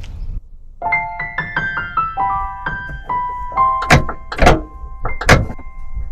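Gentle piano music, notes coming in one by one and held. Three loud thuds sound over it in the second half.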